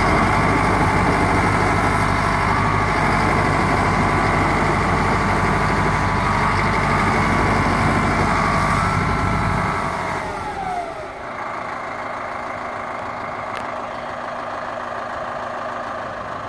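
Caterpillar 130G military motor grader's diesel engine running at raised speed, then slowing about ten seconds in, its pitch falling as it drops back to a quieter, steady idle.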